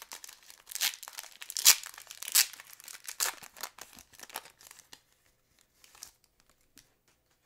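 Foil wrapper of a 2006 Fleer Ultra football card pack being torn open and crinkled by hand: a run of sharp crackling, loudest about two seconds in. It thins to a few faint rustles after about five seconds.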